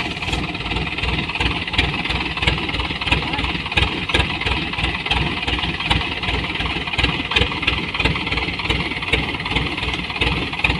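A farm machine's engine running steadily, with a rapid, even low-pitched pulsing throughout.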